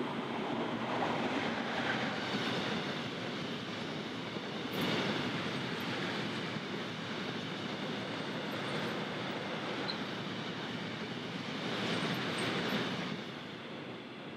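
Freight train of tank wagons rolling through the station without stopping: a steady rumble and rattle of steel wheels on the rails, swelling a little about five seconds in and again near the end, then falling away as the last wagon passes.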